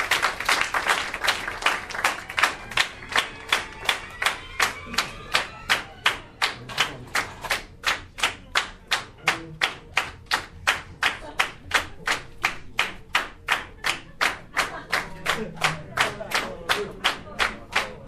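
Audience applause that settles into steady clapping in unison, about three claps a second.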